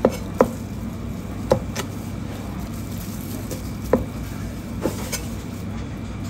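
Chinese cleaver slicing red pepper on a plastic cutting board: about half a dozen sharp knocks of the blade meeting the board, irregularly spaced, over a steady low background hum.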